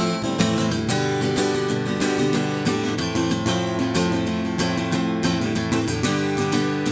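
Acoustic guitar strummed in steady chords, an instrumental passage of an up-tempo folk song with no singing.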